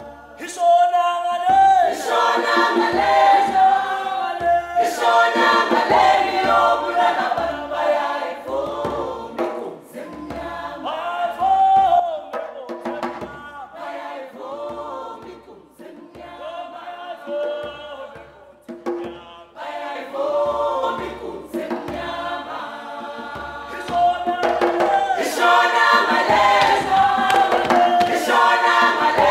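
A choir of voices singing together over a steady low beat. The singing drops to a quieter passage midway and swells again near the end.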